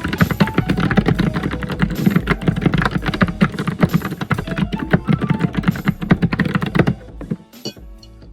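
Fast, heavy typing on a computer keyboard: a dense run of keystrokes that eases off about seven seconds in to a few quieter taps.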